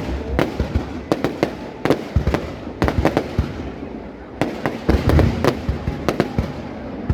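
Aerial fireworks bursting in an irregular series of sharp bangs and crackles. There is a short lull about three and a half seconds in, then a denser run of bursts.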